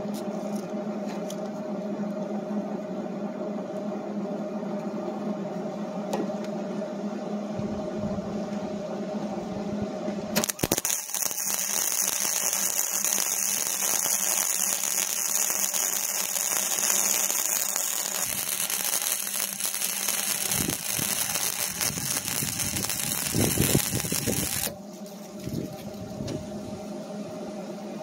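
Metalwork on a steel loader bucket: a steady machine hum, then about ten seconds in a loud, even hiss that lasts about fourteen seconds and stops, leaving the hum again.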